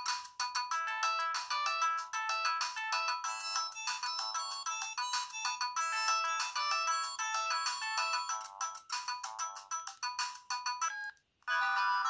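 Ringtone playing on a Sendo S360 mobile phone: a quick melody of short, bright notes, several at once, with no bass. Just before the end it stops and a different ringtone starts.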